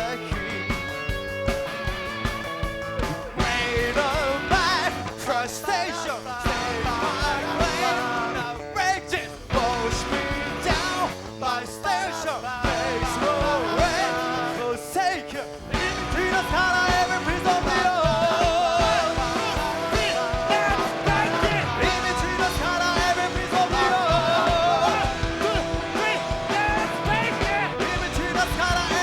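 A rock band playing live: an instrumental passage with electric guitar lines over bass and drums.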